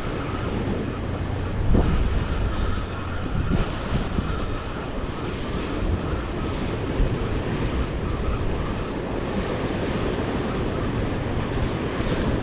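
Sea surf washing against the rocks of a breakwater, a steady rushing, with wind buffeting the microphone.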